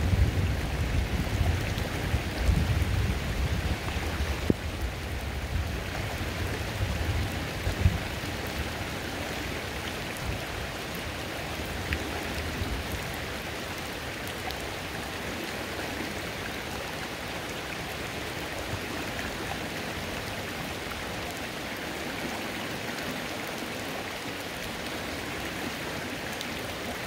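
Rain falling on a creek: a steady hiss of drops on the water and flowing water. A low rumble with a few thumps sits under it in the first eight seconds or so, then fades away.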